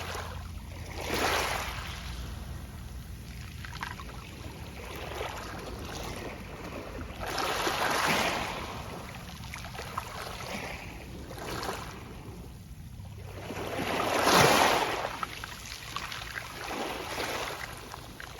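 Gentle Mediterranean waves washing onto a pebble beach, each surge followed by the soft rustle of pebbles. Three bigger surges, the loudest about three-quarters of the way through, with smaller ones between them.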